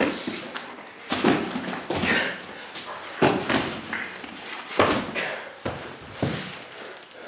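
Wrestlers' bodies thudding and slapping against a foam mat, with several sharp thumps a second or two apart amid scuffling.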